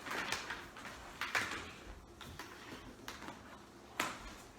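A few short knocks and scrapes with light rustling, about one a second, the sound of things being handled and moved; no vacuum motor is running.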